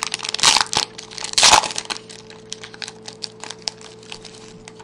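Foil trading-card pack wrapper crinkling and being torn open: two loud crackles in the first two seconds, then lighter crackling and small clicks.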